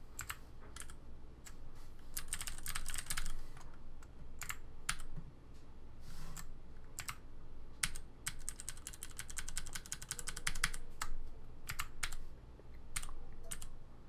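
Typing on a Ducky Mini 60% mechanical keyboard with Cherry MX Green switches in a heavy aluminium case: sharp clicky keystrokes, in two fast flurries (a short one, then a longer one mid-way) with scattered single key presses between.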